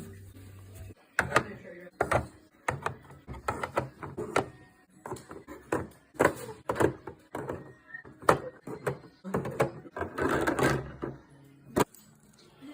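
Irregular clunks, taps and clatter of food containers and items being handled and set down in a refrigerator during restocking, with a longer noisy stretch about ten seconds in.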